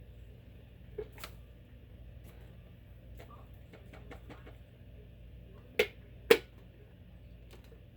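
Hard plastic clicks and knocks as a Black & Decker cordless lithium pet vacuum's dust bin is twisted open and its filter taken out. There are a couple of light clicks about a second in and two sharp, louder clicks about half a second apart near six seconds in.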